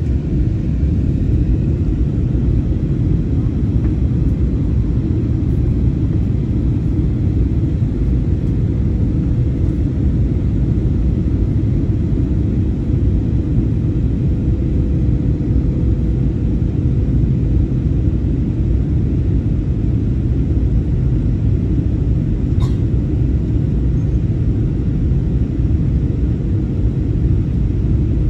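Jet airliner cabin noise in flight: a steady low rumble of engines and airflow, with a faint steady hum under it. A single short click about three-quarters of the way through.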